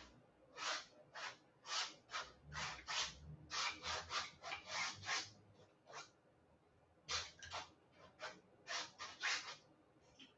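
Small palette knife scraping paint, in a run of short scraping strokes about two a second, with a break of about a second a little past the middle.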